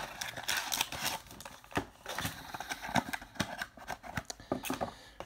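A cardboard trading-card mini box being opened and the foil-wrapped card pack inside pulled out and handled: irregular crinkling of foil with scattered sharp clicks and taps of cardboard.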